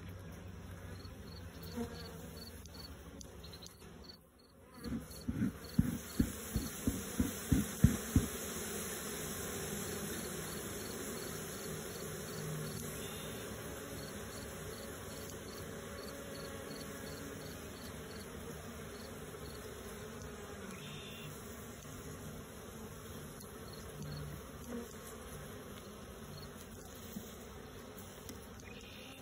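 Honeybees buzzing steadily over the open frames of a hive. About four seconds in, a run of about ten low thumps comes roughly three a second and stops after about eight seconds.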